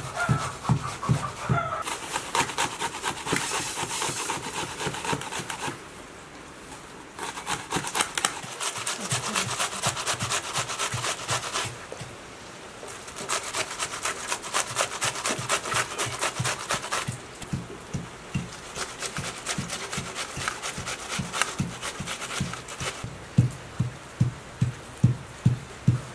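An onion being grated on a metal hand grater: quick, rough scraping strokes in three long runs with short pauses between them. Near the end a steady low beat of background music comes in.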